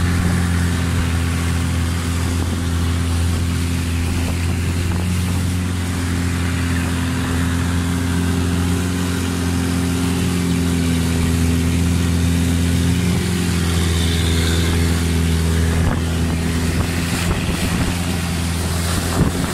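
Longtail boat's engine droning steadily as the boat runs at speed, with a constant rush of water and wind.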